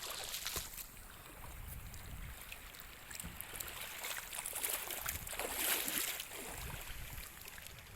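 Wind gusting on the microphone with seawater washing and splashing against shore rocks: an uneven rushing noise with scattered small splashes.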